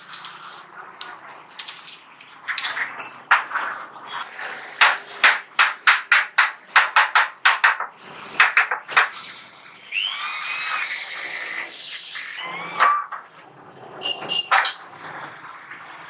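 Hammer blows on the sheet-metal casing of a gas water heater, a run of sharp strikes coming about three a second, followed by an electric drill running for about two seconds.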